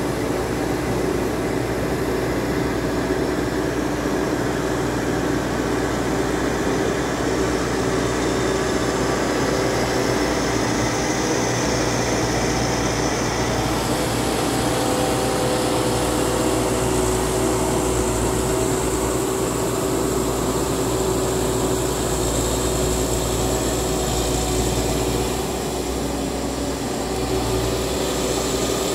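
Steady drone of the engines of two NF902 and NF802 paddy tractors working a flooded rice field, running at an even pitch without pause.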